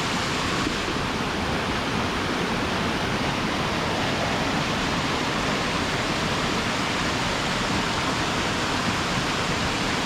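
Steady rush of falling water from a waterfall cascade, an even hiss without breaks.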